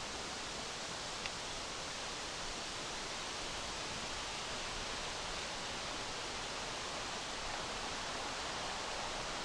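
Steady, even hiss of wind blowing through the campsite, with a single faint tick about a second in.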